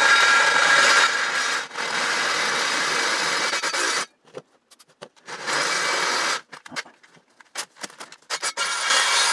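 Cordless drill running in bursts, its oiled bit cutting through a steel wheel to enlarge a lug-nut hole. A long run of drilling for about four seconds, a shorter one a little later and another near the end, with clicks and scrapes of the bit and metal between.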